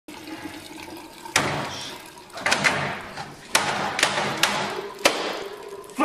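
Water splash sound effect: a run of about six sudden splashes, the first about a second and a half in, then one every half-second to second, each trailing off.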